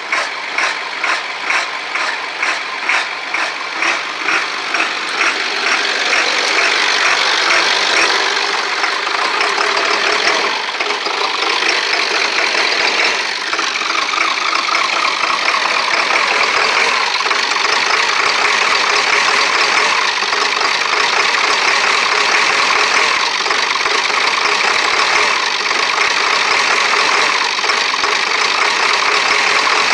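Ford 7.3 litre Power Stroke V8 diesel cranking slowly on a weak starter, about two compression pulses a second, while it builds injection oil pressure. About six seconds in it catches and runs with a steady diesel clatter.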